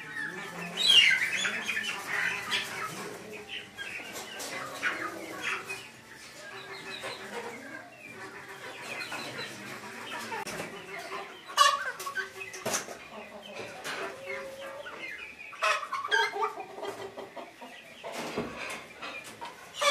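Several Ayam Cemani chickens clucking and calling over one another, with a loud run of falling calls about a second in. A few sharp clicks and knocks stand out near the middle and later.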